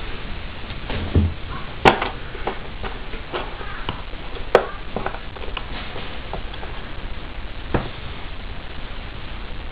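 Cardboard letter tiles being picked out of a box and set down on a game board: a few sharp taps and clicks, the loudest about two seconds and four and a half seconds in, over a steady hiss.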